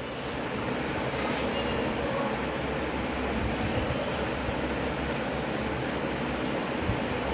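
Crayon scribbling on a workbook page: quick back-and-forth colouring strokes rubbing steadily on paper, a little louder from about a second in.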